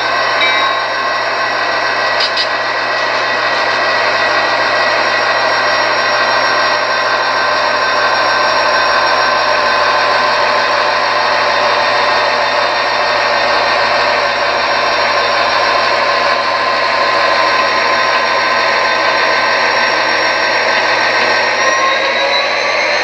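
HO-scale model diesel locomotives, a BNSF GP50 and GP38-2, running with their train: a steady mechanical drone with whining tones. Several of the tones rise in pitch near the end.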